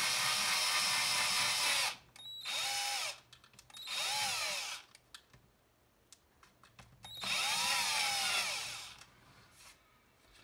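Power drill with a step drill bit boring an access hole in a power supply's plastic case: a steady motor whine for about two seconds, then three shorter runs with the motor speeding up and slowing down between pauses.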